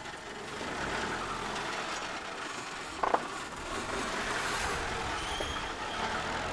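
A Mercedes-Benz saloon driving past, its engine and tyres giving a steady noise that grows about a second in as it pulls away. A brief sharp sound stands out about three seconds in.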